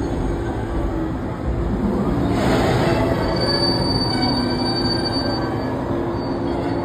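JR West 103 series electric train running slowly alongside the platform, with steady wheel and brake squeal and a brief hiss about two and a half seconds in.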